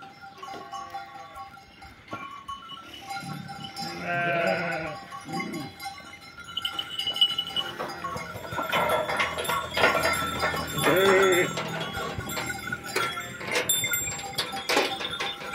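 Bells on a flock of sheep ringing and clinking as the sheep jostle at a feed trough, with sheep bleating a few times, once a few seconds in and again past the middle.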